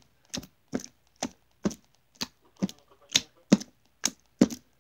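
Hands repeatedly slapping and squishing a runny homemade slime against a plastic container: about ten short wet slaps in a steady rhythm, roughly two a second.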